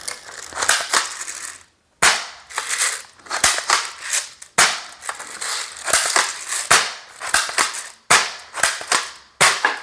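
Plastic airsoft BBs rattling as they are poured into a cheap airsoft shotgun's gravity-fed hopper, in a string of sharp rattling bursts.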